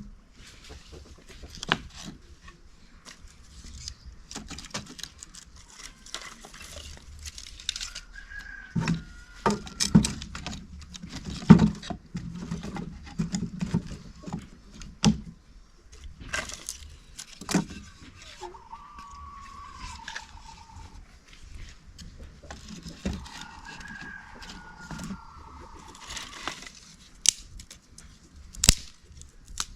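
Irregular clicks, knocks and rustling from objects being handled, with three drawn-out, falling bird calls in the middle and later part.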